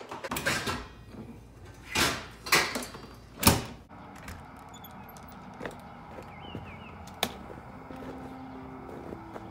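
Four loud, short knocks and scuffs of handling in the first few seconds. Then a steady low outdoor hum, with a single sharp click a little after seven seconds in.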